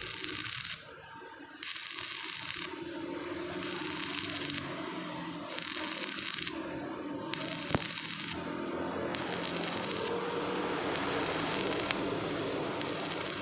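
Stick-welding arc crackling and hissing on thin steel square tube, the crackle swelling and easing in roughly one-second spells as the rod is worked along the joint. A single sharp tick sounds about eight seconds in.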